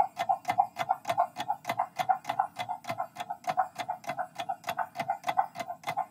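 Countdown-timer sound effect: a clock ticking evenly, about three ticks a second, each tick with a short pitched tone.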